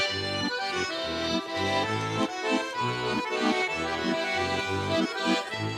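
Button accordion playing a lively folk tune instrumentally, its melody carried over a regular, even bass-and-chord accompaniment.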